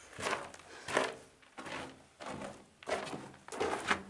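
Footsteps of people walking through an underground tunnel at a steady pace, about one step every two-thirds of a second.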